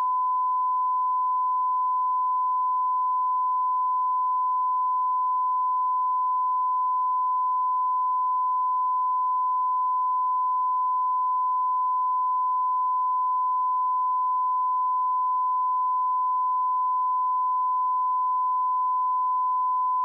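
A pure 1008 Hz sine-wave test tone, one steady unbroken pitch at constant volume.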